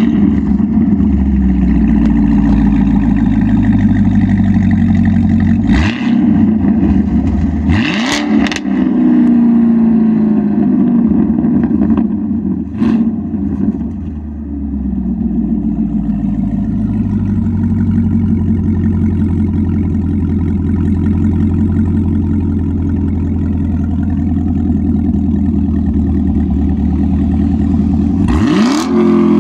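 Chevrolet Camaro SS 1LE's 6.2-litre V8 idling just after a warm start, heard from behind through its MBRP axle-back exhaust. It is blipped a few times in the first half and once more near the end, each a quick rising rev, and otherwise settles into a steady, deep idle.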